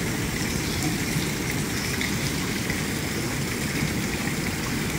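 Steady water noise from a swimming pool's surface close to the microphone: small splashes and lapping with no distinct strikes.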